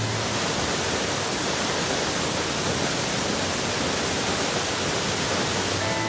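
Steady rush of water pouring down a narrow waterfall over rocks.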